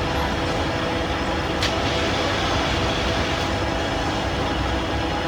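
G Dufour 53 universal milling machine running: a steady mechanical hum with several even tones, with a single sharp click about a second and a half in.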